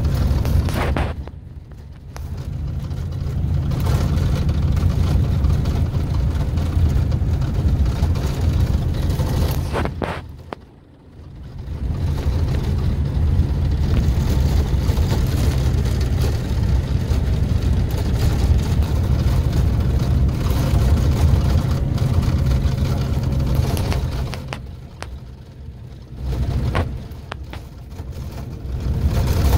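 Scania K-400 coach engine running with a steady deep hum. Its sound falls away briefly three times, about two seconds in, about eleven seconds in, and again near the end, then comes back up each time.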